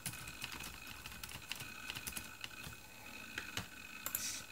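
Irregular light clicking of keys being typed on an iBook G4 laptop's built-in keyboard.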